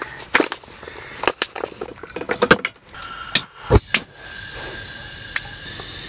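A foil food pouch crinkling and rustling as it is opened and emptied into a pot, with light knocks. About three and a half seconds in, a couple of sharp clicks and a low thump as a remote-canister camping gas stove is turned on and lit, after which the burner hisses steadily.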